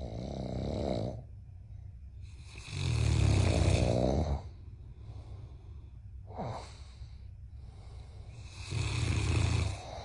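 Heavy, rattling snoring: three long snores a few seconds apart, the middle one the loudest, with a short falling whistle between the second and third.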